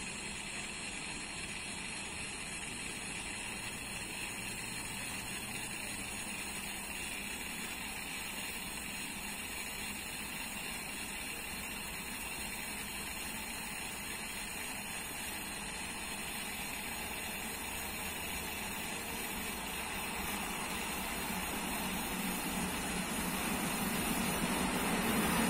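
Freight train hauled by a pair of 2ES6 Sinara electric locomotives approaching: a steady rushing noise that grows louder over the last several seconds as it nears.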